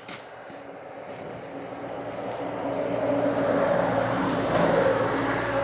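An engine running at a steady pitch, growing steadily louder over several seconds and loudest near the end.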